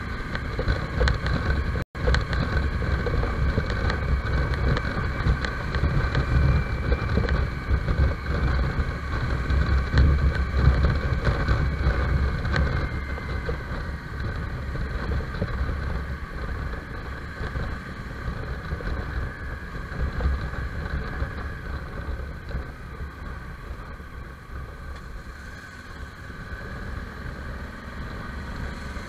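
Motorcycle engine running under way, recorded by an onboard camera, with low wind rumble on the microphone. It is louder through the first half and eases off toward the end. The audio drops out briefly about two seconds in.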